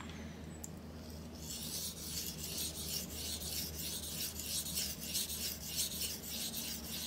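Steel knife blade scrubbed back and forth on a 1200 grit Atoma electroplated diamond plate: a high rasping scrape in quick repeated strokes, about three a second, starting about a second in. This is the abrading stage that raises a burr along the edge.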